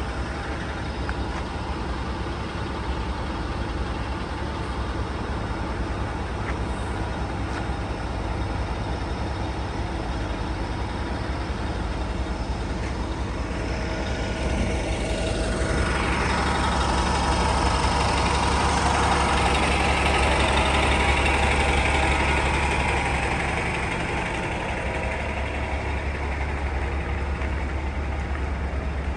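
Steady low rumble of idling city bus engines. About halfway through a vehicle sound swells louder, with a falling pitch, and fades again.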